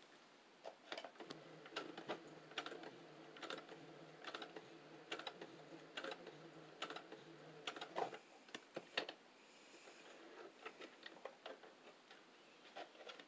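Brother electric sewing machine stitching slowly: a faint motor hum with a regular tick of the needle a little more than once a second, stopping about eight seconds in. A few scattered clicks follow as the fabric is handled.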